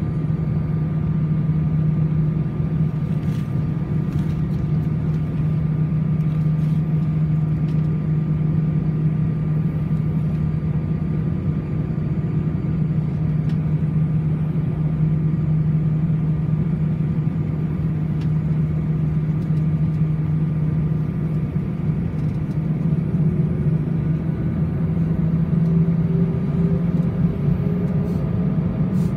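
Airbus A319-111's CFM56 turbofan engines running at low thrust, heard inside the passenger cabin as a steady low hum with a thin steady whine. Near the end a whine starts to rise slowly and the sound grows a little louder as thrust comes up.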